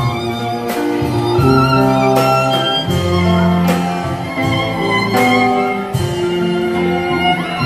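Violin played live through a microphone with a small ensemble: cello, upright bass and drums. Held bass notes change every second or so, under the violin melody and regular drum hits.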